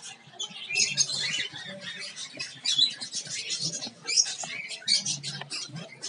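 A flock of cockatiels chattering: a dense, unbroken run of short, high, scratchy chirps and squawks from many birds at once.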